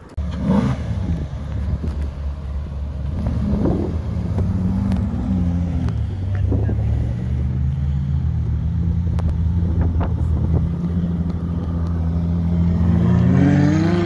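Ferrari 458 Italia's V8 engine running at a steady pitch, then rising in pitch and getting louder as the car accelerates past near the end.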